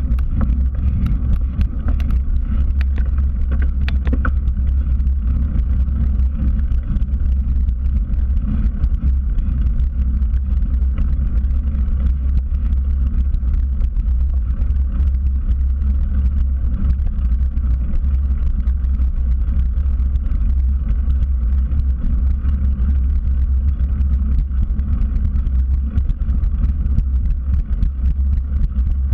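Steady wind rumble on a bicycle-mounted action camera's microphone while riding, with the bicycle's tyre running on a concrete path.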